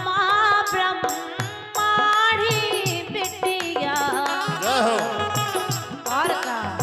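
A woman sings a Bundeli folk wedding song in long, ornamented phrases that glide between notes. She is accompanied by a harmonium's sustained reedy chords and regular drum beats.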